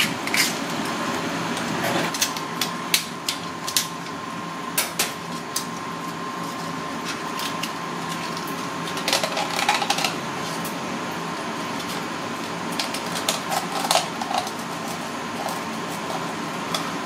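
Steel knife blade clicking and scraping against the ribbed shells of red clams (akagai) as they are pried open, in irregular sharp clicks that come in clusters, over the steady hiss of a running tap.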